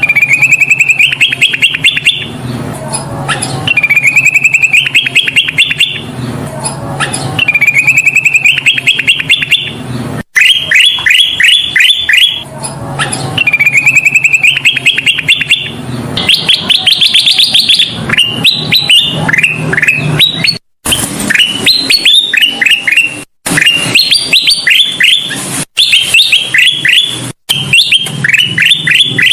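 Kutilang emas (a bulbul) singing loud, repeated phrases of rapid notes, each phrase about two seconds long and climbing in pitch, turning into quicker clipped note series in the second half. A low steady hum runs underneath, and the sound cuts out abruptly for a moment a few times.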